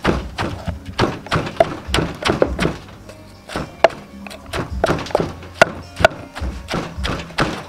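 Wooden pestle pounding shredded green papaya and carrot in a clay mortar, dull knocks about two or three a second with a short pause about halfway through, mixing them into the salad dressing. Background music plays throughout.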